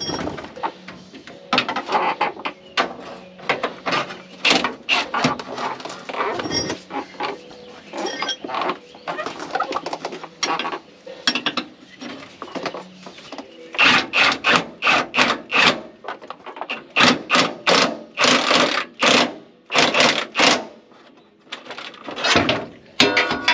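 Cordless impact wrench run in a series of short bursts, tightening a rear shock absorber's mounting bolts, with metal tool clinks and knocks between the bursts.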